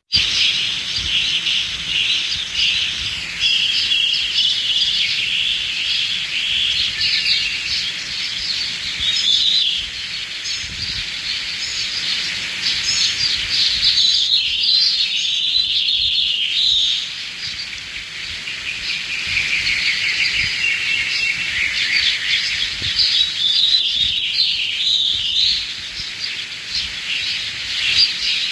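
A dense chorus of birds chirping and trilling, many calls overlapping without a break, thinning briefly about ten seconds in and again around the middle.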